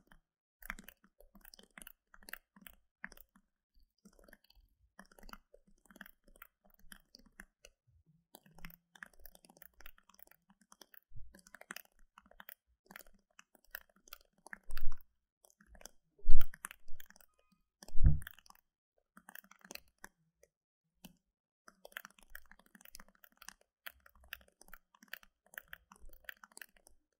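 Computer keyboard typing: quick, irregular key clicks in runs with short pauses. About halfway through come a few heavy low thuds, the loudest sounds.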